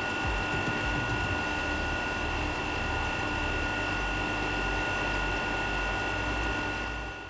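Makino Sangyo My Mill rice mill, a dry chilled-grinding pulverizer, running steadily: a constant low rumble with a steady high-pitched whine over it.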